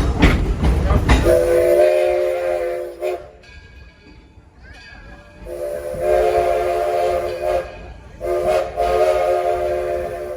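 Train whistle sounding a chord of several notes, blown in three long blasts. In the first second or so there is a loud low rumble of the moving train.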